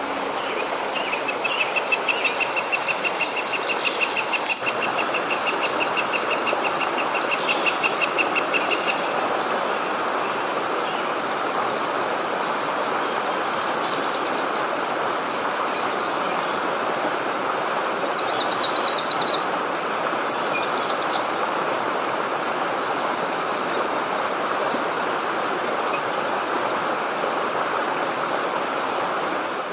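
Stream water rushing steadily, with birds chirping over it. A high, rapid trill runs through the first several seconds, and scattered chirps come later, loudest about two-thirds of the way in.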